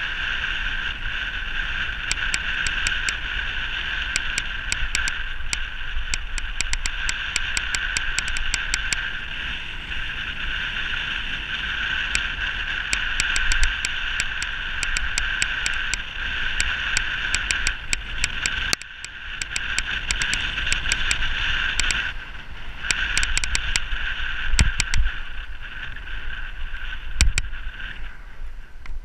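Wind rushing and buffeting over a bike-mounted camera during a fast road-bike descent, with a steady high whir and scattered sharp ticks from the bike over the road surface. The whir dips briefly twice, about two-thirds of the way through.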